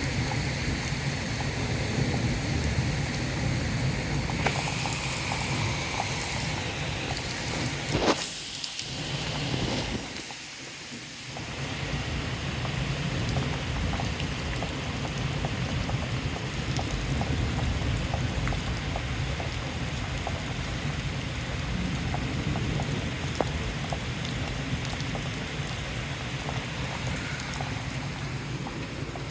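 Steady heavy rain with many small drop ticks and a low rumble of thunder beneath it. A single sharp crack comes about eight seconds in, followed by a short lull in the low rumble.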